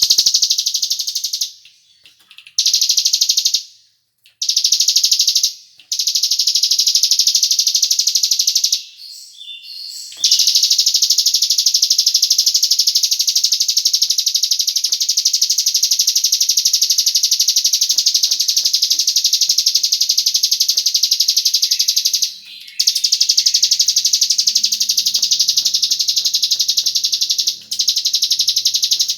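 Cigun bird song played as a lure to make other birds sing: a long, rapid, high-pitched trilling chatter that keeps going, broken only by a few brief pauses.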